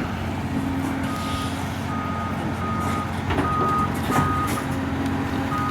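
Excavator's diesel engine running steadily while a backup alarm beeps at a single pitch, about one and a half beeps a second, starting about a second in. A couple of faint knocks sound under it.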